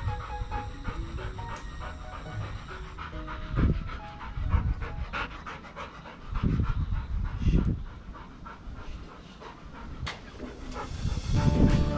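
Golden retriever panting hard, tired from the exercise, with light background music.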